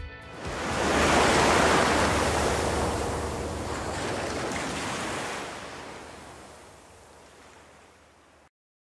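Ocean-wave sound effect: a single rush of surf noise that swells about a second in, then slowly fades away and cuts off near the end.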